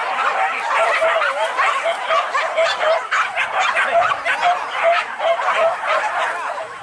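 Hunting dogs yelping and yipping, a dense run of short high cries that overlap in quick succession.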